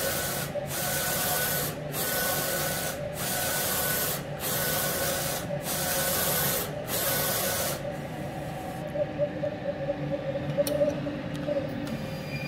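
Roland SP-540V wide-format inkjet printer printing a head alignment test pattern: the print-head carriage sweeps back and forth with a rushing sound, one pass about every 1.2 seconds with short breaks between. The passes stop about 8 seconds in, leaving quieter clicks and a low hum.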